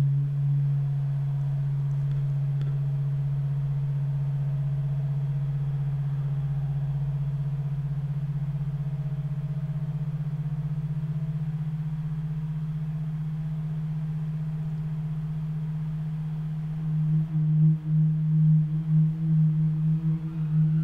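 Electronic drone: a steady low pure tone held for about sixteen seconds. It then swells and pulses as a second, higher tone joins it, with faint rising glides near the end.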